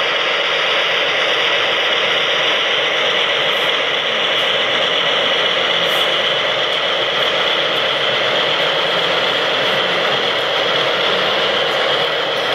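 Gauge 1 model diesel shunting locomotive hauling tank wagons along the track: a steady mechanical rattle with an engine-like running sound.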